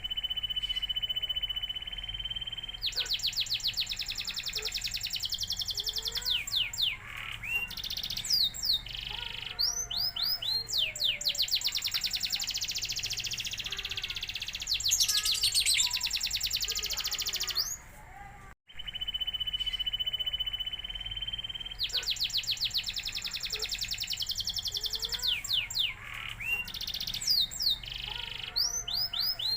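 Domestic canary singing a long, loud song of rapid trills, held whistled notes and quick sweeping phrases. The song stops briefly about two-thirds of the way through, then the same passage starts over.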